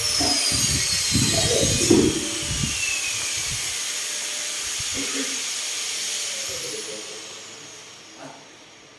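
Power drill driving screws to fit a concealed cabinet hinge: a high motor whine that falls slowly in pitch, with a few knocks in the first seconds. It fades away near the end.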